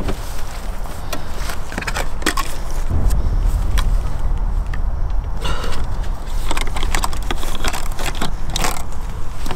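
Wind rumbling on the microphone, with scattered knocks and clatter as plastic jerry cans are handled and set against each other.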